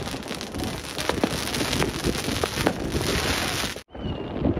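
New Year's Eve fireworks: a dense, continuous crackle of firecrackers and rockets with many sharp bangs. It cuts out abruptly for a moment near the end.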